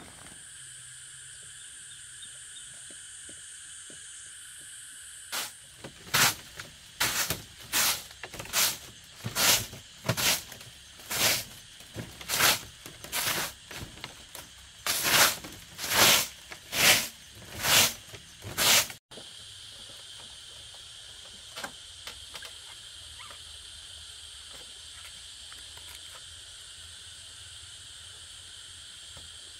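Steady high-pitched drone of insects, broken partway through by a run of about fifteen rhythmic swishing strokes, a little over one a second, that stop abruptly.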